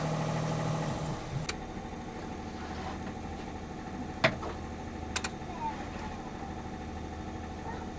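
Boat's generator running steadily under load, a low even hum, with a few short sharp clicks during it.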